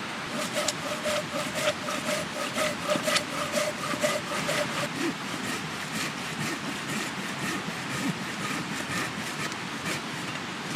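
Hand saw cutting through a wild cherry log in even back-and-forth strokes, a few per second.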